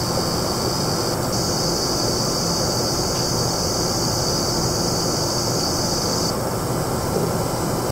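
Sapphire Vapor-X R9 290 graphics card under benchmark load giving a steady high-pitched whine over a hiss of fan noise. The owner suspects coil whine, since it appears only under load and stops when the benchmark is paused.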